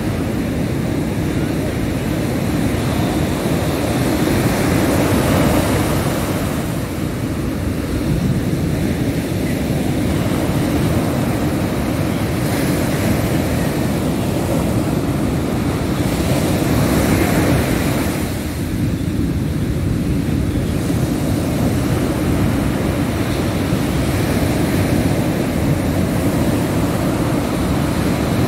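Ocean surf breaking on a beach: a continuous rush of waves that swells and eases, with two louder surges.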